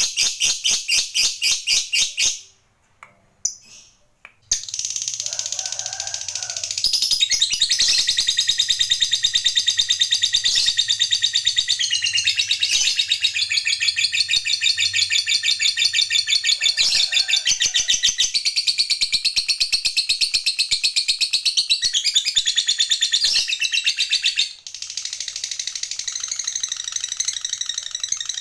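Lovebird giving its long chattering trill ('ngekek panjang'): a fast, high, rattling run of notes kept up for many seconds at a time. It breaks off for about two seconds near the start, then runs on almost unbroken, with a brief drop about 24 seconds in.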